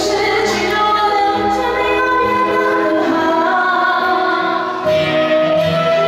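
A woman singing a song accompanied by a Chinese traditional orchestra, with held instrumental notes under the melody.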